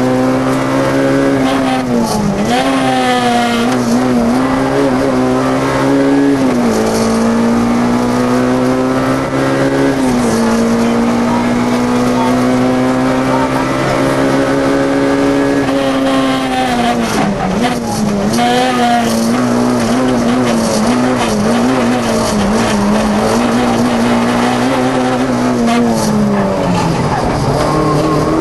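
Peugeot 106 Rallye's 1.3-litre four-cylinder engine heard from inside the cabin, held at high revs with its pitch dipping and climbing again several times and dropping near the end.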